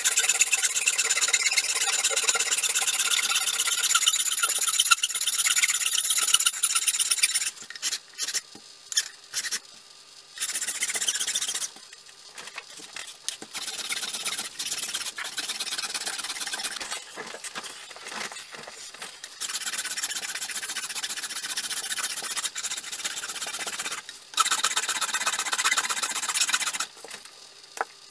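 Hand file rasping along a wooden axe handle to shape it, in quick back-and-forth strokes. The strokes come in several runs with short pauses between.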